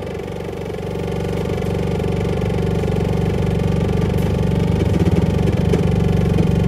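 Low, buzzing electroacoustic feedback drone from a saxophone feedbacker rig. It sets in suddenly, holds steady in pitch and slowly grows louder.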